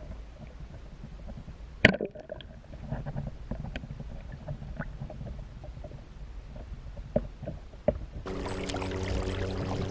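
Small knocks and clatter of gear being handled in a kayak, with one sharp knock about two seconds in. Near the end a steady hum with several pitched tones starts.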